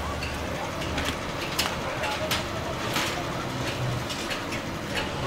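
Sharp knocks of hand tools striking brick and metal rubble, repeating about every second, over the steady idling of a Hitachi excavator's diesel engine and the voices of a crowd.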